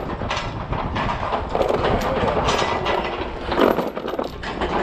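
Heavy half-inch galvanized anchor chain being dragged and piled onto a wooden pallet, the links clattering and scraping against each other and the wood, with a steady low rumble underneath.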